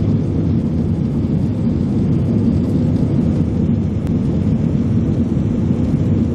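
Steady low rumble of a jet airliner's engines and rushing air, heard inside the passenger cabin in flight.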